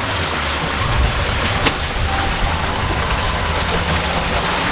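Steady background noise: an even hiss with a low hum underneath, and one sharp click about a second and a half in.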